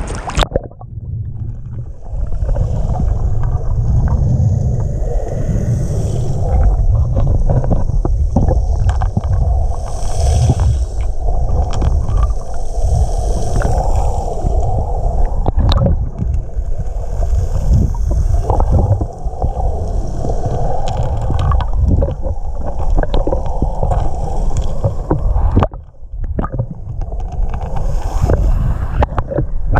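Muffled underwater rumble of lake water moving over a bed of rounded pebbles, heard by a submerged camera, with scattered sharp clicks. The sound goes dull about half a second in as the camera goes under and stays low and dense, with a short drop near the end.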